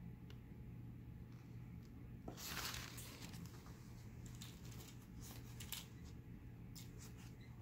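Quiet room noise: a steady low hum, a brief rustle about two and a half seconds in, then scattered faint clicks and ticks.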